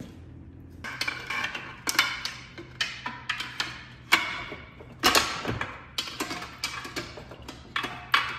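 Irregular metal clinks and knocks, some ringing briefly, from tools and parts being worked by hand at the rear of a car gearbox from underneath. They start about a second in and come every half second or so.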